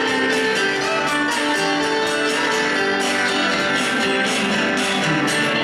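A small country band playing an instrumental passage live: a strummed acoustic guitar and electric guitars over a steady beat from an electronic drum kit, with no singing.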